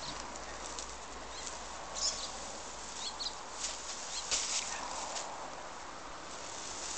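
Old straw thatch being ripped out by hand and thrown down the roof, rustling and crackling in short snatches, loudest a little past halfway. A few brief bird chirps sound in the background.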